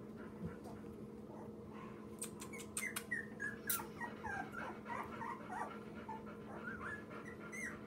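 Two-week-old lab-mix puppy making a string of short, high squeaks and whimpers, some falling in pitch, starting about two seconds in. A few sharp clicks come among the first squeaks.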